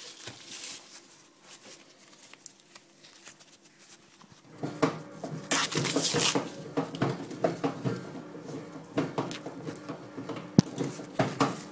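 Fresh green corn husks rustling and tearing as a strawberry popcorn cob is peeled by hand, with knocks from handling the camera and a sharp click near the end. About four and a half seconds in, the steady hum of a bread machine's kneading motor starts underneath.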